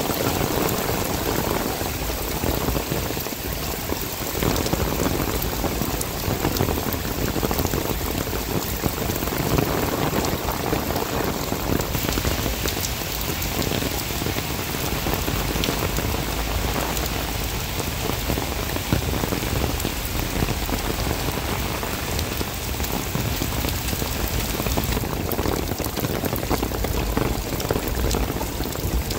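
Heavy summer downpour on a paved street: a dense, steady hiss of rain splashing on wet pavement and puddles.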